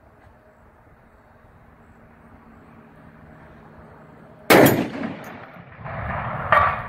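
.50 BMG rifle firing a single shot about four and a half seconds in: a sharp, very loud report followed by a rolling echo. About two seconds later comes one metallic clang with a short ring.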